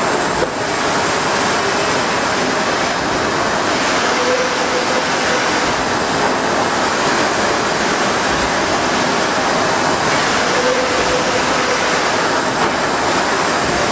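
Large-format flatbed UV printer running, its print carriage sweeping across the bed with a steady whirring hum; a faint short whine rises twice, about six seconds apart.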